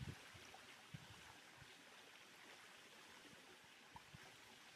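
Faint, steady rush of a small waterfall, with a couple of soft low thumps near the start.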